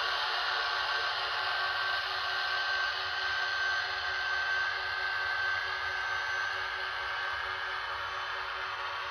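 HO-scale model electric locomotive running slowly on Kato Unitrack: a steady whine from its small motor and gearing with wheel rolling noise, one high tone growing stronger mid-way.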